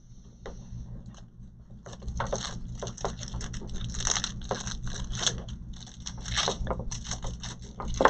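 Cables and plastic being handled at the back of a desktop PC: irregular rustling, crinkling and clicking that starts about two seconds in, over a steady low hum, with a sharp knock at the very end.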